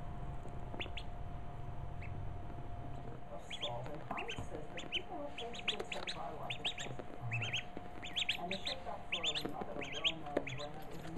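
Duckling peeping: a few short high cheeps in the first couple of seconds, then quick runs of cheeps from about three and a half seconds in.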